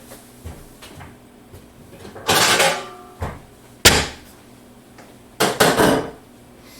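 Kitchen handling noises: a scraping rustle a little over two seconds in, a sharp knock like a cupboard door shutting near four seconds, then two more rattly scrapes near the end.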